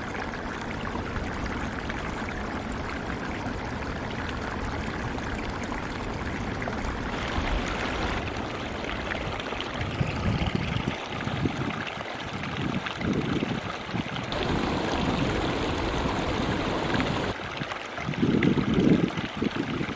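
Small mountain stream running and trickling over rocks, a steady rush of water. From about halfway in, irregular low gusts buffet the microphone, loudest near the end.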